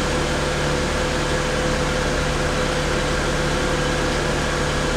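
BMW car's engine idling, a steady hum with a constant mid-pitched tone.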